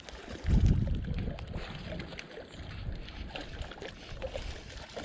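Spinning reel being cranked in while a hooked trout is played, with small clicking ticks. A low rumble on the microphone starts about half a second in and is the loudest part.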